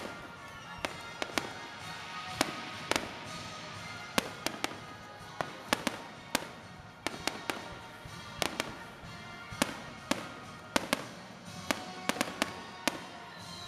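Fireworks display: aerial shells bursting in an irregular series of sharp bangs, about two dozen, sometimes two or three in quick succession.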